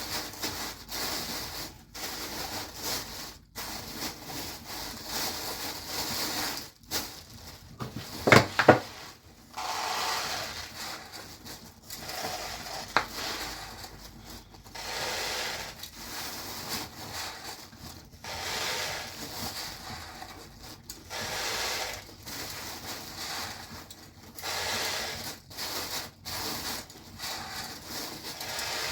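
Repeated scraping strokes, each a second or two long with short pauses between them, and a couple of sharp knocks about eight seconds in.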